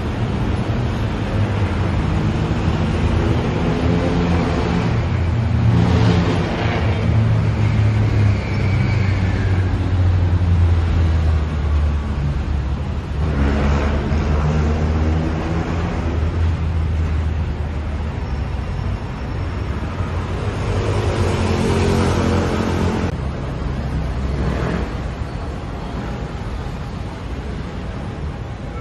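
Road traffic: an engine running steadily with a low hum, while vehicles pass by three times, each swelling up and fading away.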